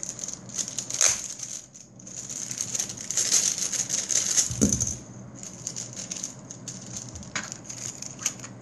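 Plastic packaging crinkling and crackling as a fidget spinner is unwrapped by hand, with a few sharp clicks; the crinkling is densest in the middle.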